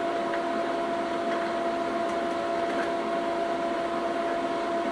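Steady machine hum with a constant whine in two pitches, an octave apart, and a few faint light clicks.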